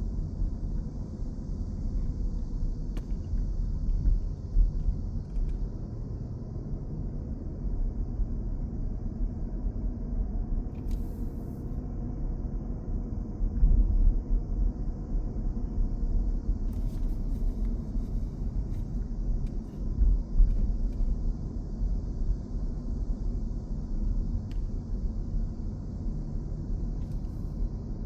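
Outdoor ambience: a fluctuating low rumble that swells a few times, with a faint steady high hiss.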